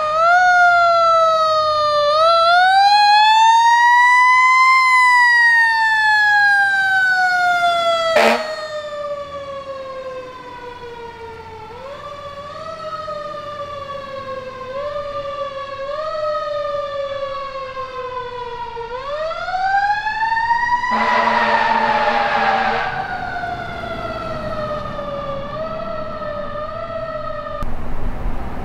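Fire truck siren wailing, its pitch climbing and sliding slowly down, pushed up again in several short steps and once in a long rise about two-thirds of the way through. A sharp click comes a little before the middle, and a two-second horn blast sounds at the top of the long rise.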